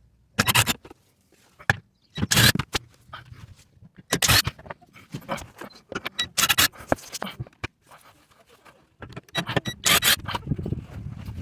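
A 13 mm wrench scraping and clicking in irregular bursts as the screws holding the plastic engine undertray are undone.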